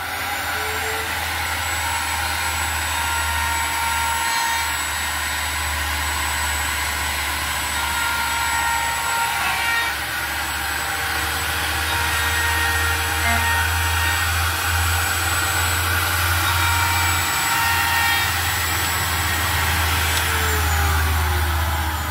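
Benchtop router table running, with a 3/16-inch corner-round bit rounding over the edges of a small MDF block. It spins up as it is switched on, runs at a steady high speed with a steady whine, and winds down after being switched off near the end.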